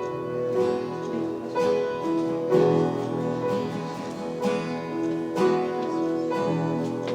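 Instrumental music: guitar playing sustained chords that change about once a second, with piano or keyboard.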